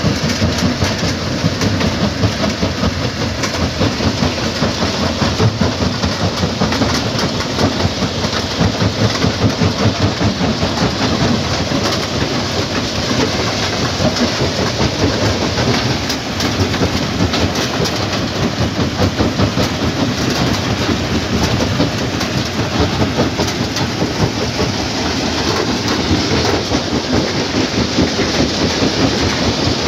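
Stone crushing plant running: jaw crushers and belt conveyors giving a loud, steady mechanical rattle with a dense, irregular clatter of knocks.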